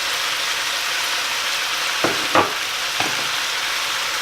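Stir-fry vegetables sizzling steadily in a hot pan as they are stirred, with a utensil knocking against the pan three times about two to three seconds in.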